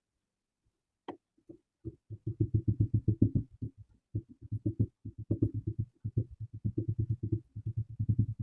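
Knife cutting through kinetic sand in quick repeated strokes: soft, dull thuds about seven a second, in three runs with short pauses between them. A single click comes about a second in.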